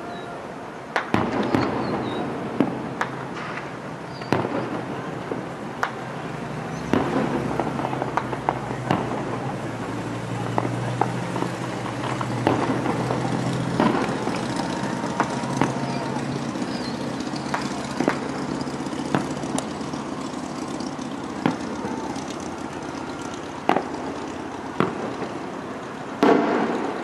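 Distant fireworks shells bursting: sharp bangs at irregular intervals, roughly one a second, over a steady background hiss.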